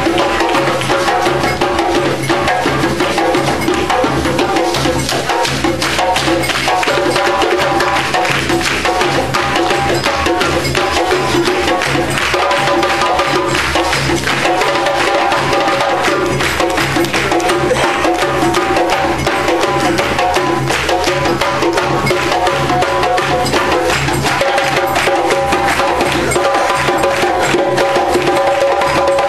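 Live percussion music: hand drums and sharp wooden clicks playing a fast, dense rhythm over steady held pitched tones.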